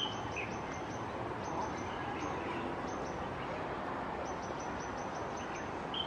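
Outdoor city-park ambience: a steady hum of background noise with a few short bird chirps, one just after the start and one at the end, and faint high ticking calls.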